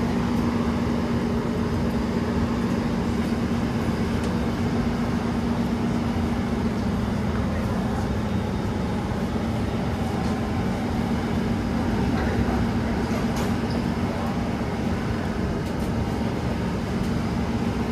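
Singapore MRT train running at steady speed between stations, heard from inside the carriage: a continuous rumble with a steady hum.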